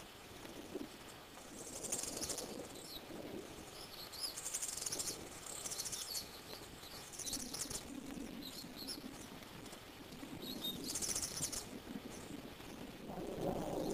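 Bird chirps: short, high-pitched bursts several times, over a faint low rustle.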